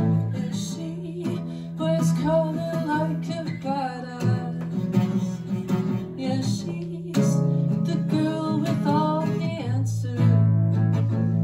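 Live singer-songwriter music: strummed guitar chords changing every few seconds, with a wordless sung vocal line over them twice.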